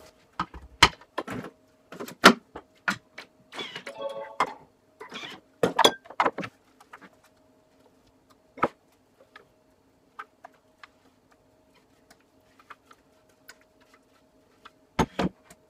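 Spatula scraping and knocking against the stainless-steel Thermomix mixing bowl as the hummus is scraped out: a run of sharp clicks and knocks over the first six or seven seconds, then only scattered faint ticks over a faint steady hum, with two louder knocks near the end.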